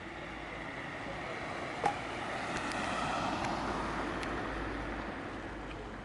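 Nissan Cube car driving slowly away at low speed, its engine and tyre noise swelling and then easing off. A single sharp click comes about two seconds in.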